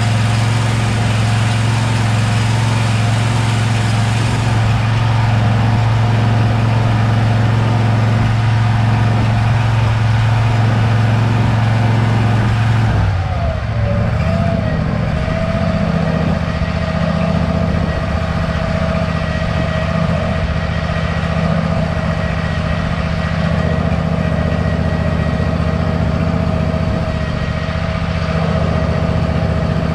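Zero-turn mower's small engine running steadily. About halfway through its speed changes, with a brief dip in pitch, then it settles and holds steady again.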